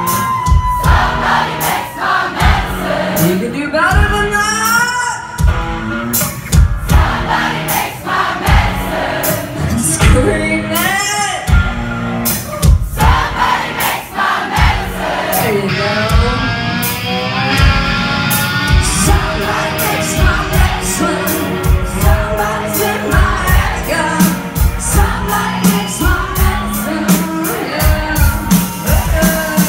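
Rock band playing live in a concert hall: drums keeping a steady beat of about two hits a second under electric guitars, with a female lead vocal singing the melody.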